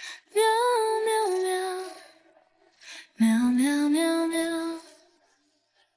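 A high, childlike voice singing drawn-out "meow" notes as a gentle song, in two held phrases with a pause of about a second between them.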